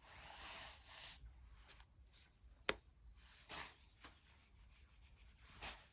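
Tarot cards being handled: soft sliding and rubbing swishes of cards and hands on the table, with one sharp click about two and a half seconds in.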